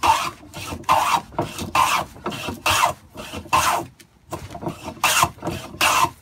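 Metal jack plane shaving the corner of a wooden block, taking off large shavings. It makes seven quick rasping strokes, about one a second, with a short pause a little past halfway.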